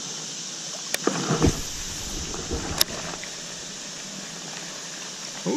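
Steady rush of a fast-flowing river current. Two sharp clicks come about a second in and just before three seconds, with a brief run of knocks and small splashes between them.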